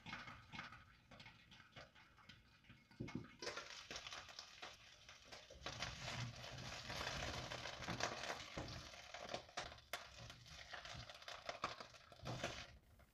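Bell pepper pieces sizzling faintly in a hot nonstick frying pan while a plastic spatula stirs and scrapes them, with many light taps and clicks. The sizzle starts about three seconds in and stops shortly before the end.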